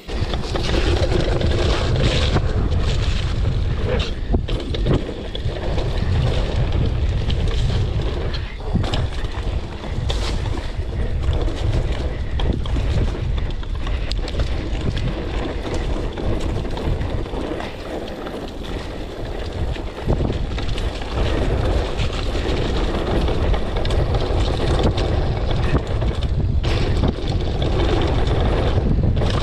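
Wind buffeting the microphone of a mountain bike riding down a wet dirt trail, with tyre noise and frequent knocks and rattles as the bike hits bumps.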